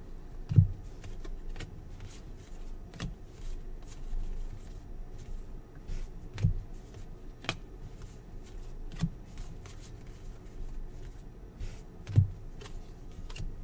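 Trading cards (2020-21 NBA Hoops basketball cards) handled one at a time from a stack in the hand, with light flicks and slides of card on card. About five louder dull knocks are scattered through it.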